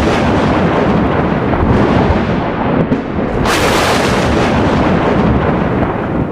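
Thunder rumbling on without a break, with a fresh sharp crack about three and a half seconds in that rolls into another long rumble.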